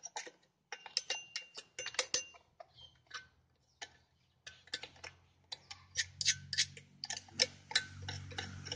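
Packed sawdust being scraped and brushed out of a chainsaw: quick, irregular clicks and scratches of a hand tool working against the saw's body.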